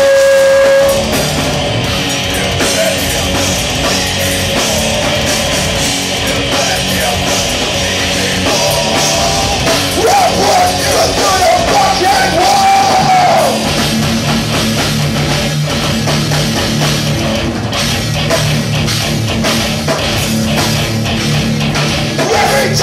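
A heavy rock band playing live, loud, with electric guitars and drums. A long held note breaks off about a second in, and a wavering line rises and falls around the middle.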